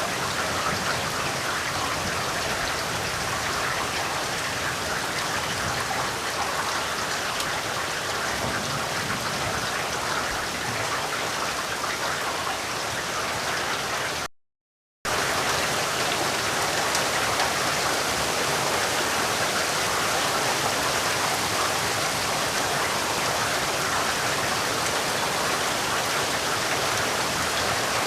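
Steady rain falling, an even hiss of drops without pause, except for a break to silence of just under a second about halfway through, after which the rain resumes at the same level.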